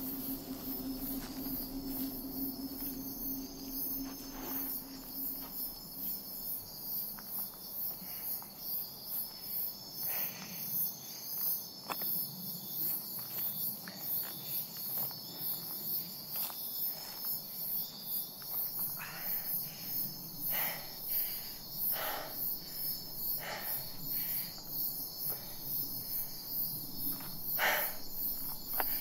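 Insects chirping steadily in a fast, even pulse, with footsteps crunching along a dry dirt trail, more regular in the second half.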